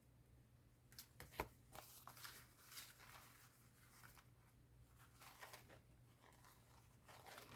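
Faint rustling and crinkling of paper being handled, with one sharp tap about a second and a half in, over a low steady hum.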